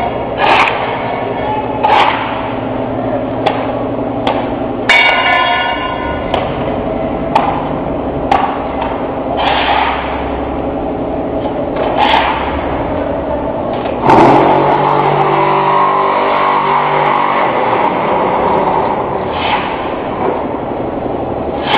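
QT4-30B mobile concrete block making machine running: its motor hums steadily while metal parts clank sharply every second or two. About 14 seconds in, the hum turns louder and rougher.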